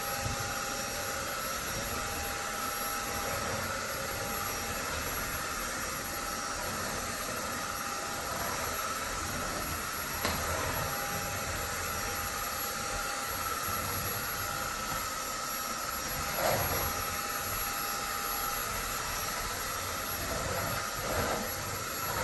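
Cordless stick vacuum running steadily, a motor hum with a high whine, with a few brief louder surges as it works.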